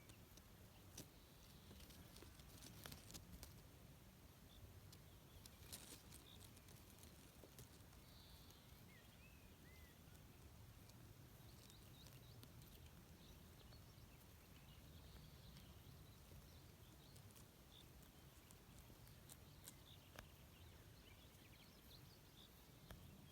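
Near silence: faint outdoor ambience with a low rumble, scattered soft clicks and a few faint high chirps.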